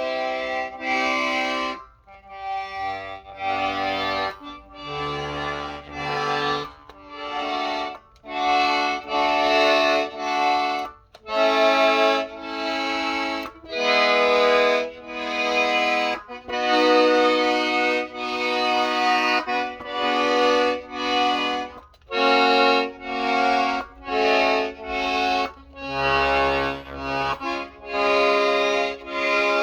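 Hohner Tango II piano accordion's bass buttons pressed one after another, each sounding a separate held chord or bass note for about a second, with short breaks between.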